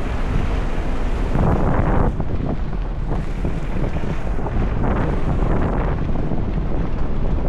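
Jeep driving on a rough dirt mountain road: steady engine and road noise with a few short knocks, and wind buffeting the microphone.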